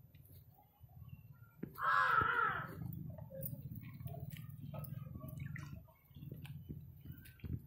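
A crow cawing once: a single loud, harsh call about two seconds in, falling in pitch at its end.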